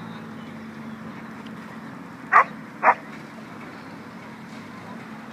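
A dog barks twice, about half a second apart, loud and close, over a steady low background murmur.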